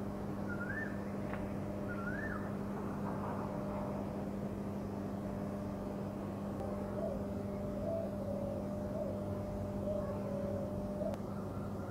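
Steady low hum of heavy electric plant machinery. A bird chirps twice in short rising-and-falling whistles in the first couple of seconds, and fainter short chirps come in the second half.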